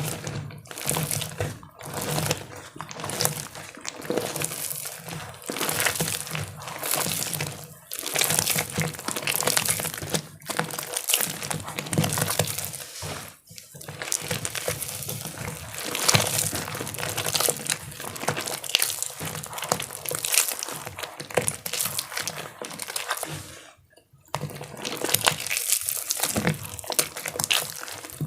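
Gym chalk being crushed in water: a dense run of wet crunching and crackling, broken by brief pauses.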